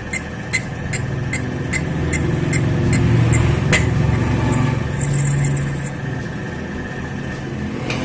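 Metal lathe turning a water pump's volute housing while a boring tool takes a light cut across its worn inner face, with a steady machine hum. Sharp, even ticks come about two to three times a second and stop about halfway through.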